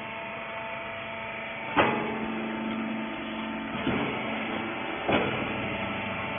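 Hydraulic textile baler running with a steady hum, and three sharp knocks spaced about one to two seconds apart, the first the loudest.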